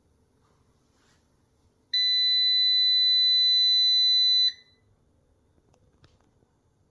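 Solar inverter's warning beeper sounding one long, steady, high-pitched beep lasting about two and a half seconds, starting about two seconds in.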